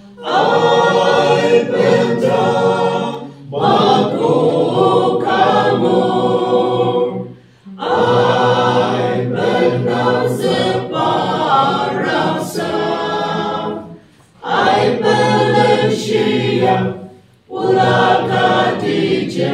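Mixed choir of women and men singing unaccompanied, in phrases broken by short pauses for breath.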